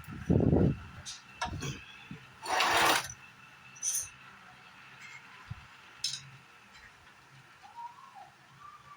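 A few knocks and clinks, with a short hiss about two and a half seconds in.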